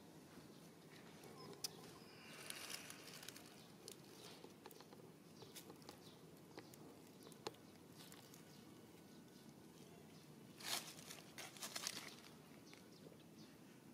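Near-silent outdoor quiet with faint scattered clicks and rustles, and a louder stretch of rustling a couple of seconds before the end.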